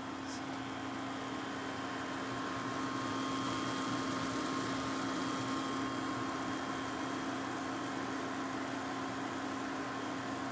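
Sliced hot dogs and soy sauce sizzling on high heat in a stainless frying pan, over the steady hum of a portable electric cooktop's cooling fan. The sizzle swells slightly about two seconds in.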